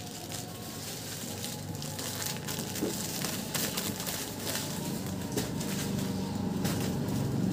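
Small cardboard boxes and packets being handled, with a few faint clicks and rustles over a low steady hum that grows louder near the end.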